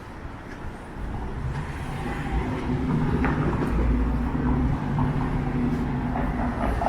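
Motor vehicle engine running close by with a steady low hum, over street traffic noise. It grows louder about a second in and then holds steady.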